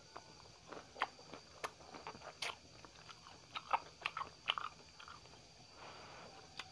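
Close-miked chewing and mouth sounds of someone eating thick lomi noodles: a scattered series of short, sharp smacks and clicks.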